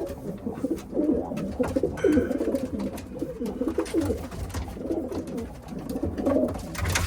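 Racing pigeons cooing in the loft: a run of low, rolling coos, strongest in the first two seconds and again near the end.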